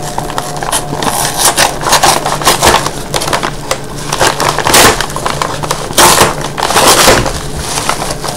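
A kraft paper mailer being cut and torn open by hand with a small knife: the paper crinkles and crackles throughout, with louder ripping rasps about five, six and seven seconds in.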